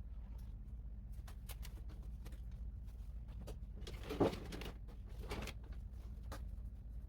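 Light clicks and small knocks of household items being handled and put down, with one sharper knock about four seconds in and a short rustle after it, over a steady low hum.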